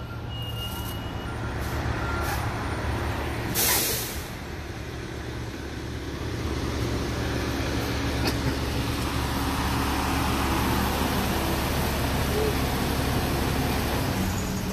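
Fire engine's diesel engine running steadily, with one loud air-brake hiss about three and a half seconds in.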